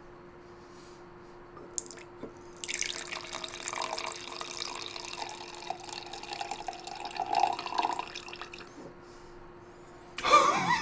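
A cocktail poured from a stainless steel cocktail shaker into a wine glass: a few small metal clicks, then a steady splashing pour lasting about six seconds.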